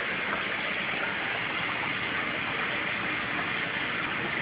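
Steady rushing, splashing water noise from the aquarium's filter running.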